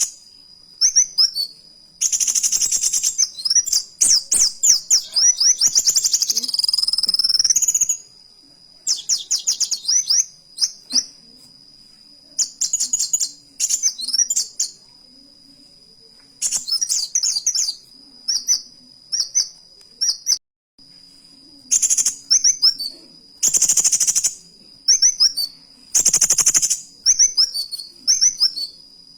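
Kolibri wulung sunbird singing hard: bursts of rapid, high, sweeping chirps, some phrases lasting several seconds and delivered as canary-style runs, separated by short pauses. A steady thin high tone runs underneath.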